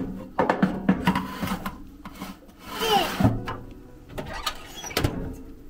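Metal baking tray scraping and clattering against the wire rack of an old gas oven as it is slid in, with a series of sharp knocks and a short hissy squeak about halfway through.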